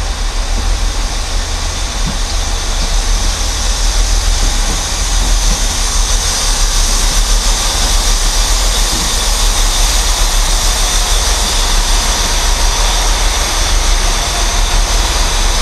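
Networker Turbo diesel multiple unit running through the platform, its underfloor diesel engines and wheels on the rails making a steady noise that grows louder about four seconds in as the carriages pass close by.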